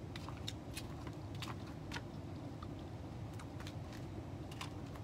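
Irregular light clicks and crackles from a person walking up while handling a plastic bag around a food container, over a steady low hum.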